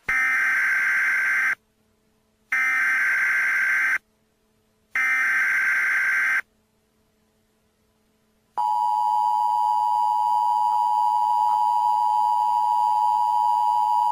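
Emergency Alert System SAME header: three bursts of screeching digital data, each about a second and a half long with about a second of silence between. About eight and a half seconds in, the EAS attention signal starts, a steady two-tone alarm that marks the start of an emergency broadcast.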